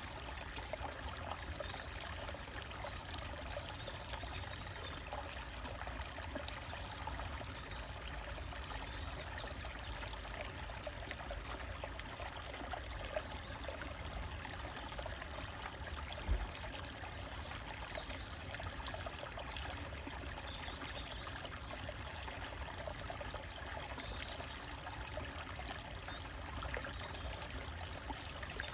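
A small forest stream trickling and splashing over rocks in a steady, even rush, with a few faint high bird chirps now and then. A single low thump sounds a little past halfway.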